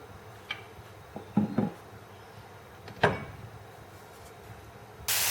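A few knocks and clunks of kitchen utensils and pan, then near the end a loud sizzle starts suddenly as sliced bacon goes into hot olive oil in the frying pan.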